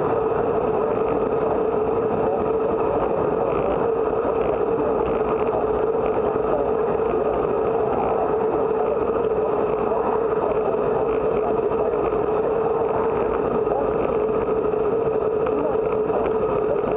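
Steady wind rush and tyre-on-asphalt road noise from a bicycle riding along at speed, with a constant hum underneath.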